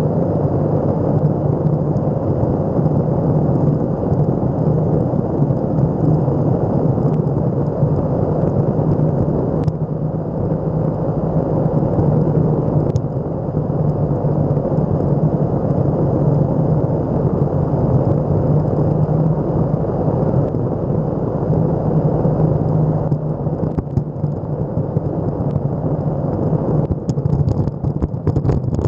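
Electric skateboard wheels rolling steadily over asphalt, a loud, close rumble, with a faint steady high whine above it. Near the end the rumble turns rougher, with scattered clicks, as the wheels cross a patchier, debris-strewn stretch of pavement.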